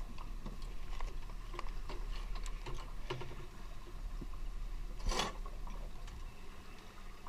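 Scuba gear being handled with gloved hands: scattered light clicks and rattles of clips, hoses and equipment, with one short hiss about five seconds in, over a low steady rumble.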